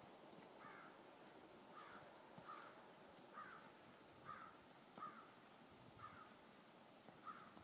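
Near silence, with a faint series of about eight short animal calls, roughly one a second, from something calling in the distance.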